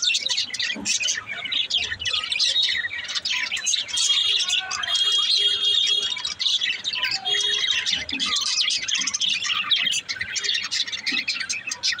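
Budgerigars chattering and warbling: a dense, unbroken run of quick high chirps and twitters, with a longer held warble in the middle.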